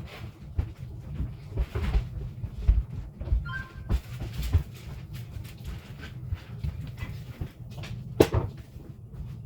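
Repeated knocks and clunks of hard objects being handled and set down, with a short two-tone electronic beep about three and a half seconds in.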